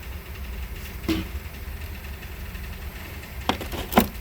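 Hard clacks of hand tools being handled: a faint one about a second in, then two sharp ones near the end, the last the loudest. A steady low hum lies underneath.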